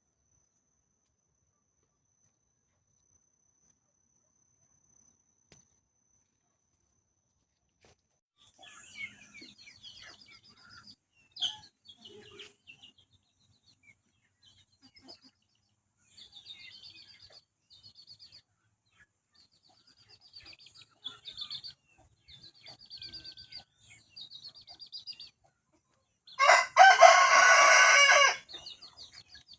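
Near silence at first, then small birds chirping in short high bursts; near the end a rooster crows once, loudly, for about two seconds.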